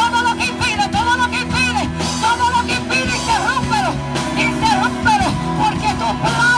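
Live worship band music played through loudspeakers: a high melody line bending up and down over steady bass and chord notes, with no words sung.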